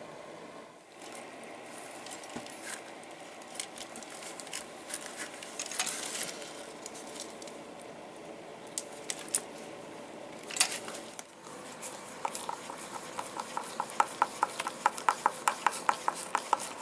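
Hand leatherworking sounds: a knife scraping and cutting leather, with scattered small clicks and handling noises. Near the end comes a quick, even run of light metal-on-metal taps, about four a second, as a snap-setting tool is tapped to set a metal snap in the leather.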